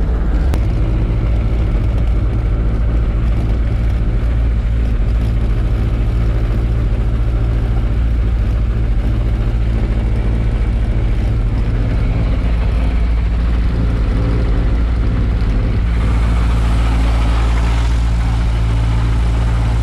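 Gyrocopter's Rotax 915 turbocharged four-cylinder engine and pusher propeller running steadily at low power while rolling out and taxiing after landing. About sixteen seconds in the sound turns brighter, with more hiss on top of the engine.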